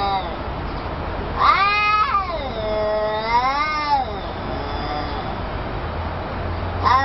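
Domestic cats in a face-off, caterwauling at each other: a long drawn-out threat yowl starts about a second and a half in, rising and falling in pitch for about two and a half seconds, and another begins near the end. This is the warning yowling of cats squaring up before a fight.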